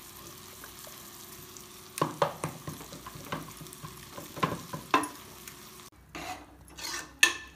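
Wooden masher (mathu) pounding cooked green gram in an aluminium pressure cooker, making a run of irregular soft knocks and squelches against the pot. Near the end come a few sharper clinks of a spatula stirring a tempering in a pan.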